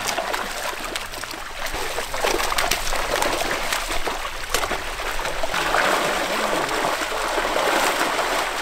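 Shallow water splashing and trickling as fishermen wade through it hauling a seine net: a steady wash of water with many small splashes, a little louder after the middle.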